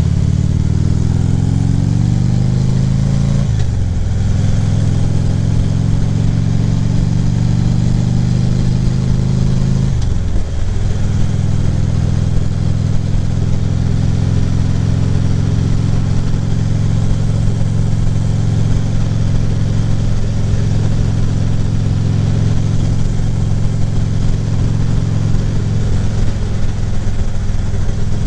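2014 Harley-Davidson Ultra Classic Limited's V-twin engine pulling away, its pitch rising, with a brief drop at a gear change about three and a half seconds in and another about ten seconds in, then running steadily at cruising speed. Wind rushes over the helmet-mounted microphone.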